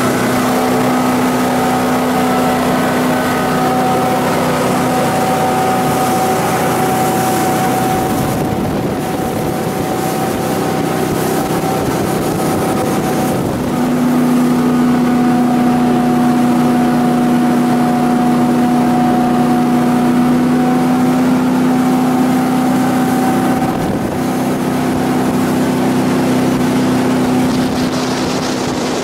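1993 Almar Sounder 22 jet boat running under way at steady speed, its Ford 460 V8 gas engine and jet drive making a steady drone over the rush of water. The engine note gets louder about halfway through.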